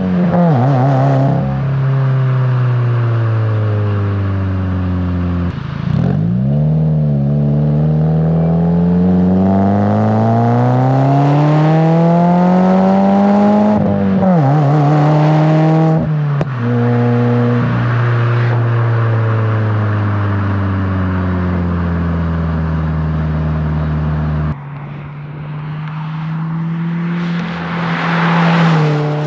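A 2020 Subaru WRX's turbocharged FA20 flat-four, breathing through a Greddy RS Race catback exhaust, pulls under throttle. The deep exhaust note climbs through the gears and drops sharply at each upshift. Later it eases off and settles lower, then picks up again near the end.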